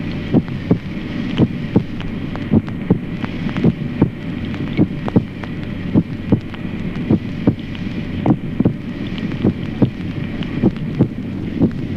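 Normal adult heart sounds through a stethoscope: a steady lub-dub, the first sound dull and the second clear, repeating about once a second over a steady hiss.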